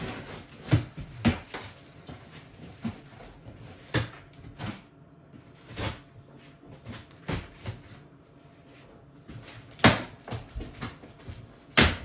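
Large cardboard box being cut open and handled: scraping and rustling cardboard broken by a series of sharp knocks, the loudest two near the end.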